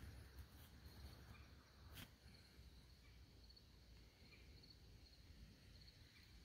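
Near silence with faint insects, likely crickets, chirping at a steady, repeated pace, under a low rumble of the phone being handled against the blind's fabric; a single sharp click about two seconds in.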